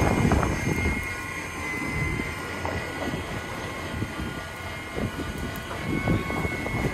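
Electric fishing reel's motor whining steadily as it winds in line on a hooked fish, over wind buffeting the microphone.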